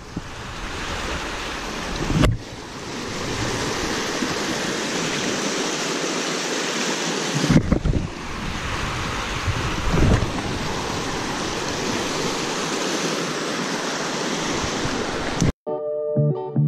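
Fast, rushing water of a small stream in spate, a loud steady hiss, with wind buffeting the microphone in a few low thumps. About fifteen seconds in it cuts off abruptly and guitar music begins.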